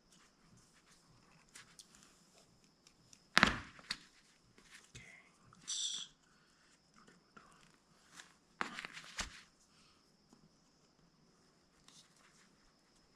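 Knocks, taps and rustles of a screwdriver and lace being worked through the hole of a sandal's sole, the sharpest knock just over three seconds in and a cluster near the end, with a brief high squeak about halfway through.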